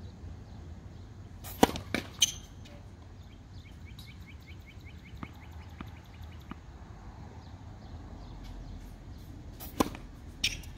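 Tennis serves: two sharp racket-on-ball hits, one about a second and a half in and one near the end, each followed about half a second later by a second knock.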